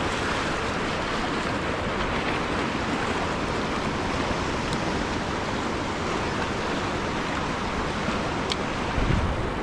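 Steady rush of fast-flowing river water, a tailwater river running high with the dam's generators on. A low thump comes near the end.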